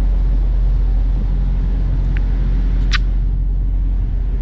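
Steady low drone of idling diesel truck engines. A short, sharp high chirp cuts through it about three seconds in.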